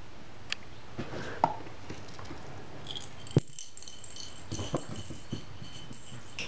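A small cat-toy ball rattling and jingling as a cat bats it along the hallway rug, with scattered light knocks and one sharp click about three and a half seconds in; the jingling starts about three seconds in.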